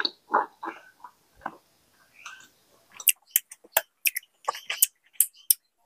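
Close-up mouth sounds of eating honey: a few soft chewing sounds, then from about three seconds in a quick run of sharp, sticky clicks and smacks as a finger wipes honey off a plate.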